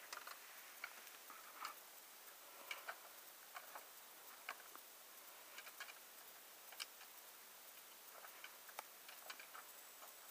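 Faint, irregular clicks of trekking-pole tips and boots striking limestone rock, over a quiet hiss.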